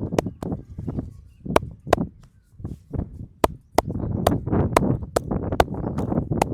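Hands slapping and tapping on a person's head in a massage: sharp claps, uneven at first, then about two a second in the second half, over a low rushing noise.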